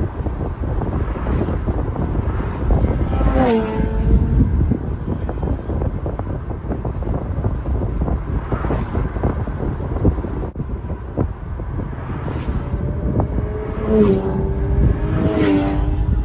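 Open-top Porsche 718 Boxster driving, with road and engine rumble and wind buffeting the microphone. The engine note falls in pitch about three seconds in and again near the end.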